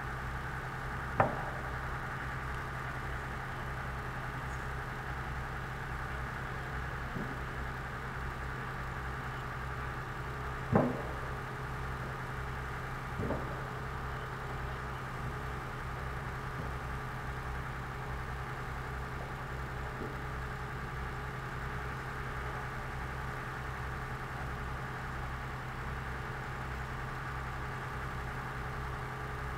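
Heavy machinery's engine idling steadily, with a loud sharp knock about a second in, another near the eleven-second mark, and a fainter one shortly after.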